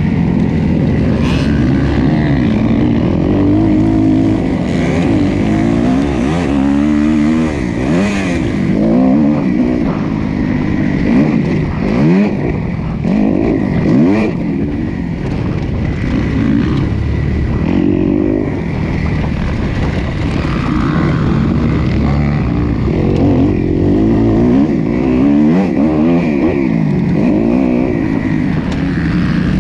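Motocross bike engine heard on board while racing a dirt track, its pitch rising and falling over and over as the rider opens the throttle and shifts.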